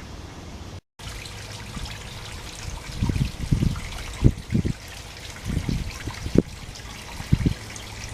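Water trickling steadily, with a few short low rumbles about three to seven and a half seconds in.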